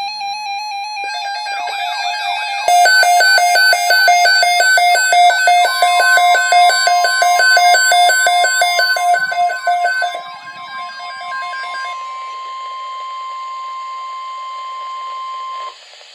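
Electronic beeping tones, pulsing rapidly and stepping in pitch, then about six seconds in the steady single-pitch NOAA Weather Radio warning alarm tone comes in. It holds for about ten seconds over radio hiss and cuts off sharply near the end, the signal that an urgent weather message follows.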